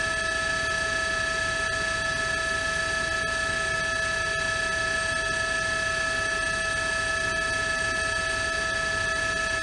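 A steady electronic buzzing tone made of several held pitches, unchanging in pitch and level, over an even hiss.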